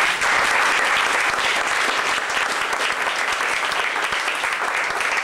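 Audience applauding steadily at the end of a poem, a dense clatter of many hands clapping.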